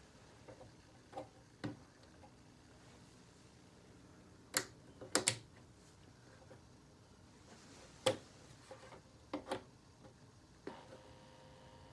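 Sharp plastic clicks and knocks from a hand handling a Jensen JTA-230 turntable's tonearm and controls, a few scattered clicks with the loudest cluster near the middle. Near the end a faint steady hum with a couple of held tones sets in.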